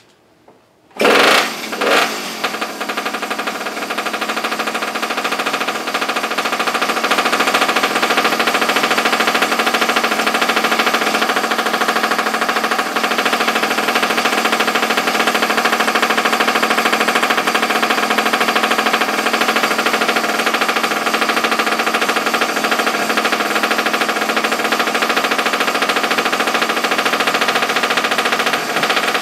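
Small single-cylinder minibike engine starting about a second in with two loud bursts, then running steadily, getting louder over the next several seconds and holding a steady rapid beat.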